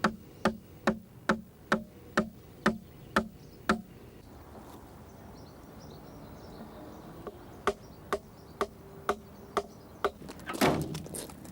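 A hand tool striking timber in steady blows about two a second: a run of nine, a pause, then five or six more. A louder, longer noise comes near the end.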